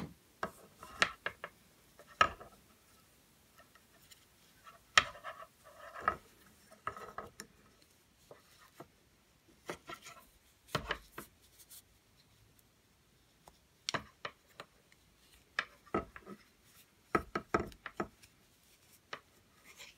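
Laminated wooden knitting needles clicking and tapping against each other at irregular intervals while purling, with soft rubbing of yarn and hands between the clicks.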